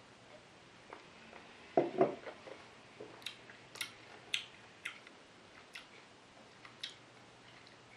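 A man silently tasting a mouthful of beer: a couple of soft low sounds about two seconds in, then a scattered run of small, sharp lip-smacks and tongue clicks as he savours it.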